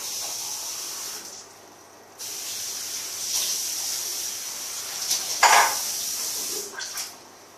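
Tap water running into a bathroom sink, a steady splashing hiss. It drops away for about a second after the start, comes back, has a louder splash about five and a half seconds in, and stops shortly before the end.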